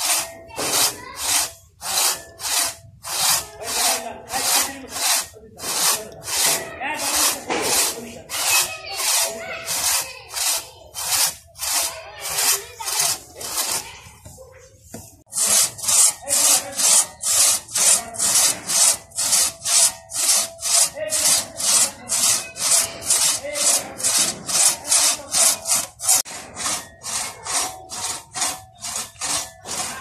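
Two-man crosscut saw cutting through a log by hand, each push and pull giving a rasping stroke, about two strokes a second. The sawing stops briefly about fourteen seconds in, then carries on at the same pace.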